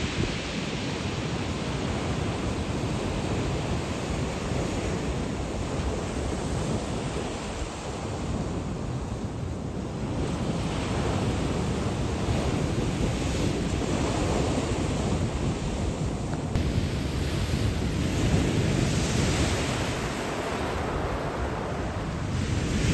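Sea waves surging and washing onto the pebble shore of Qixingtan in a continuous rush that swells and eases a few times, with wind buffeting the microphone.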